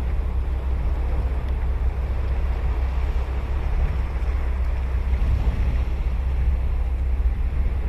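Ocean surf washing and breaking on the beach in a steady wash of noise, with wind rumbling on the microphone underneath.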